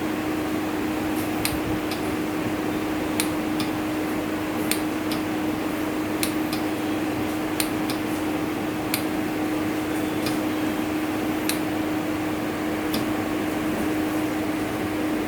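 AVIA Transvent 2.0 transport ventilator running: a steady hum and hiss, with light clicks coming regularly, about one every second and a half.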